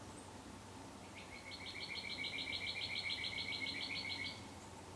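A bird singing one trill of rapid, evenly repeated notes, about six a second, starting about a second in and lasting about three seconds.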